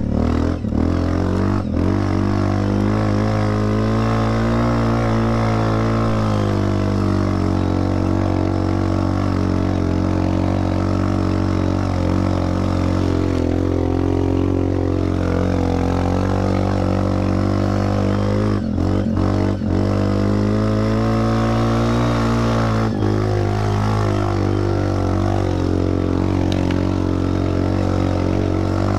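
Linhai 400S Dragonfly ATV's single-cylinder engine running under way through a cheap replica Akrapovic aftermarket exhaust. Its note rises and falls as the throttle is opened and eased, with a few short lifts off the throttle in the second half.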